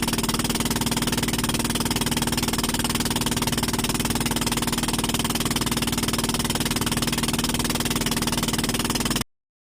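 Small combustion engine running steadily at a constant speed, loud and even, the engine noise used as the sound source for the resonator test. It cuts off abruptly near the end.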